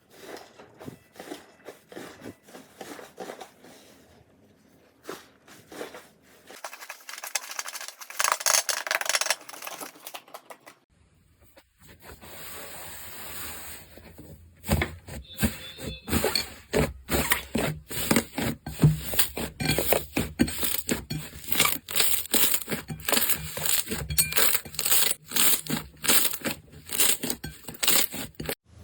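Hands squishing, poking and stretching slime, giving dense runs of wet clicks, pops and crackles, with a finer crackling stretch and a brief softer hiss partway through as one clip gives way to the next.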